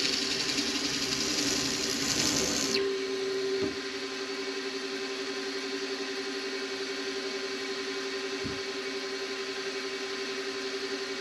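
Benchtop milling machine running with an outside chamfer mill cutting into the workpiece: a loud hiss of the cut over the spindle motor's steady whine. About three seconds in the cut stops abruptly as the cutter is raised clear, leaving the motor running with a steady hum.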